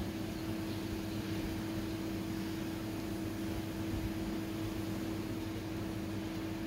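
A steady hum with one constant low tone over an even hiss, unchanging throughout.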